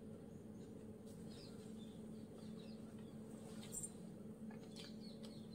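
Quiet room tone: a steady low hum with a few faint, short high chirps and light clicks.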